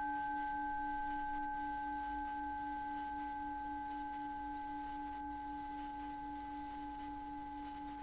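Planetary tones for Mars and the synodic moon sounding together: a low tone that pulses a few times a second and a higher pure tone above it, with a fainter tone higher still, all held and fading slowly.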